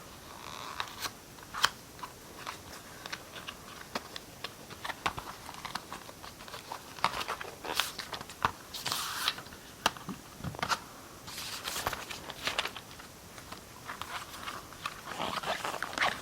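Hands opening the packaging of an Apple Watch sport loop band: scattered clicks and taps with several short bursts of rustling and crinkling of the wrapping.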